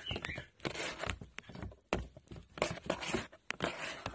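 Irregular scuffing and brushing noises right at the microphone, with a few sharp clicks, as a Maine Coon cat presses and rubs its face against the phone.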